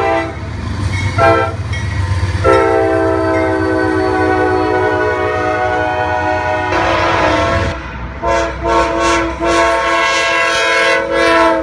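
Diesel freight locomotive air horns sounding over the low rumble of a passing train: a short blast, then a long blast held about five seconds. About three quarters in the sound changes to a second horn giving a few short toots and then another long blast.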